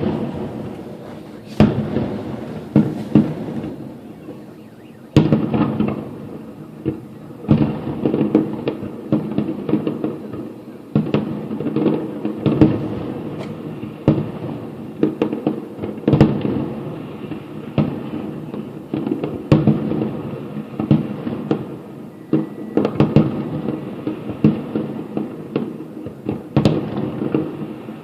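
Aerial fireworks show heard from afar: shells bursting one after another, sharp bangs with rolling rumble after them. There is a brief lull about four seconds in.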